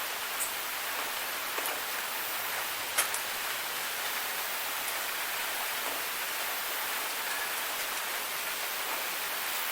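Steady night rain falling, an even hiss with scattered individual drops ticking nearby; one drop lands more sharply about three seconds in.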